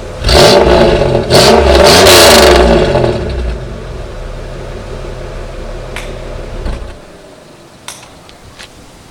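Pontiac Grand Am GT's stock exhaust: the engine is revved twice in quick succession, each time rising and falling, then settles back to a steady idle and cuts off about seven seconds in.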